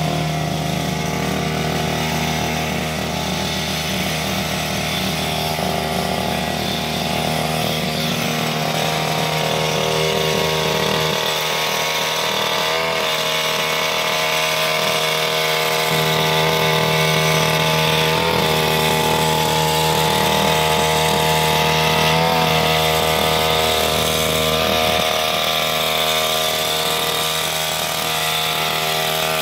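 Backpack brush cutter's engine running steadily at working speed while its nylon-line trimmer head cuts grass. The engine speed wavers slightly a few times.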